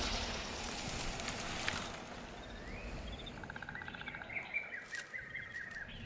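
Birds chirping and calling over a steady outdoor hiss; about halfway through, a rapid trill and short rising and falling calls set in.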